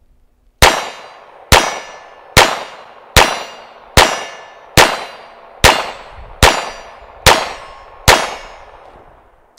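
GSG 1911 .22 LR pistol firing a full magazine of Remington Thunderbolt rounds: ten shots, evenly spaced about 0.8 s apart, each ringing briefly. The pistol cycles through the whole magazine without a stoppage.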